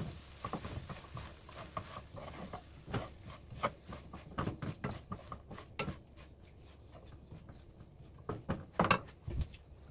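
Wooden spatula stirring and tossing sauce-coated small anchovies and garlic scapes in a nonstick pan: irregular soft scrapes and taps, thinning out in the middle, with a few louder knocks near the end.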